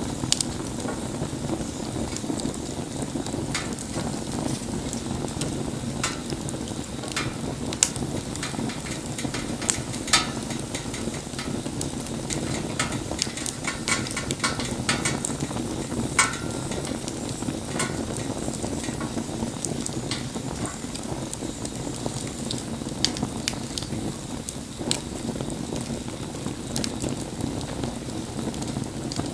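Wood bonfire burning, a steady low rush of flame with frequent sharp crackles and pops from the burning wood, a few louder pops near the middle.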